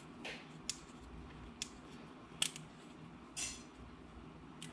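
A few faint metallic clicks and short scrapes of a small driver tightening the red-dot optic's Torx mounting screws, the sharpest click about halfway through, over a faint steady hum.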